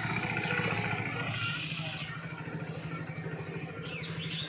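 Hero HF Deluxe BS6 single-cylinder motorcycle engine idling steadily, with a fast even exhaust pulse.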